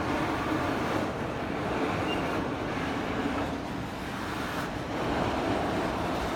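Canadian National freight train moving on the tracks: a steady rumble of wheels and railcars.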